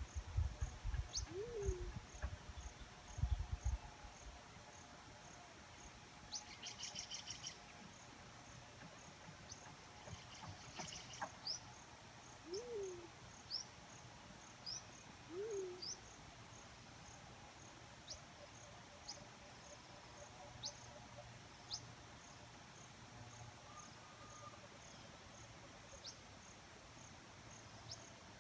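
Black-chinned fruit dove giving short, low coos, each a quick rising-then-falling note, three of them, spaced irregularly (about a second in, then twice close together near the middle). Behind them run a steady high pulsing insect trill and sharp high chirps from other birds, with low thumps in the first few seconds.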